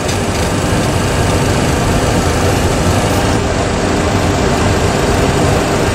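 Steady cockpit noise of a Boeing 737 Classic full flight simulator in the climb: simulated engine and airflow noise played loud through the simulator's sound system.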